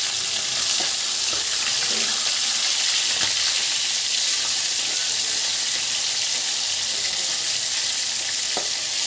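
Rohu fish steaks sizzling steadily in hot oil in a kadhai, with a few light taps and scrapes of a metal slotted spoon as the pieces are turned.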